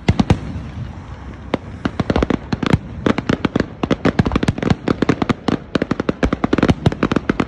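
Aerial fireworks shells bursting: a few loud bangs at the start, a single bang about a second and a half in, then a dense, rapid run of bangs from about two seconds on as several shells go off together.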